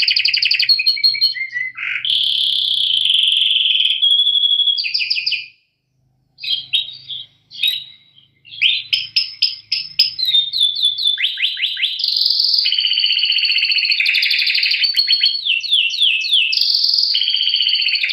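Canary singing a long, fast song of rolling trills and rapid down-swept notes, with a brief pause about five and a half seconds in.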